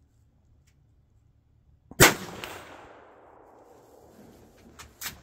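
A single shot from a Remington 591M bolt-action rifle in 5mm Remington Rimfire Magnum, about two seconds in, with a long echoing tail that dies away over a second or so. A couple of sharp clicks follow near the end.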